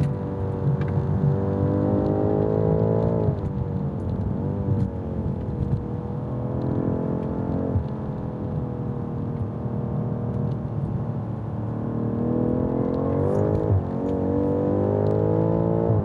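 2019 BMW M5 Competition's twin-turbo V8 under hard track driving. The engine note climbs for about three seconds, then its pitch drops sharply. It sags and holds through the middle, climbs again from about twelve seconds and drops sharply near fourteen seconds.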